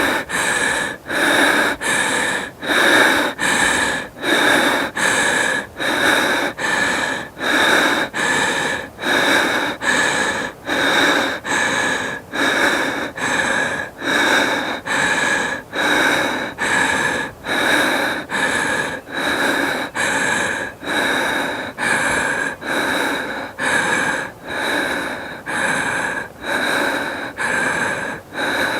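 A woman breathing hard and fast, out of breath after exercise. Quick, even breaths follow each other in a steady rhythm, a little more than one a second.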